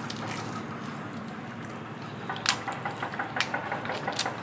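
Wet mud and shallow water squelching, splashing and dripping as feet wade and hands scoop through soft mangrove mud, with a run of sharp wet clicks from about two seconds in.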